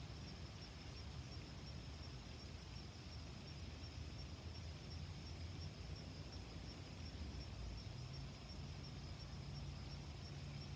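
Faint outdoor ambience: insects trilling steadily at a high pitch, over a low rumble of wind and a running stream.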